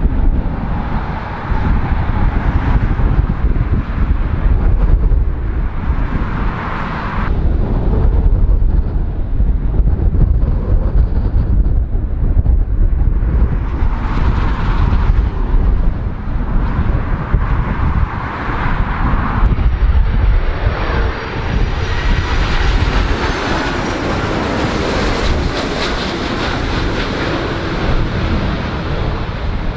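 Jet airliner engine noise over a heavy low rumble of strong wind buffeting the microphone, the sound changing abruptly a couple of times. In the last third the rising whine of an Airbus A330's jet engines on low approach becomes the loudest sound.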